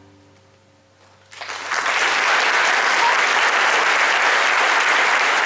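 The orchestra's final chord dies away in the hall's reverberation. About a second and a half in, the audience breaks into applause that builds within half a second and then holds steady.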